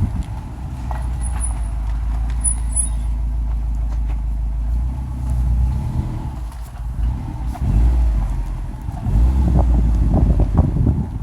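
A 2016 Subaru STI driving: steady low rumble of its turbocharged flat-four engine and tyres, easing off about six and a half seconds in and swelling again near nine seconds. Two brief, faint high squeaks come about one and three seconds in.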